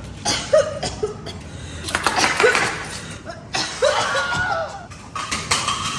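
Laughing and chuckling in short bursts, mixed with sharp clicks and knocks, from struggling with a hard-to-open throat lozenge package.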